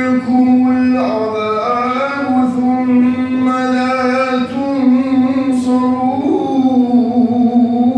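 Male voice chanting Quran recitation in the melodic tajweed style, holding long sustained notes with slow ornamented turns in pitch.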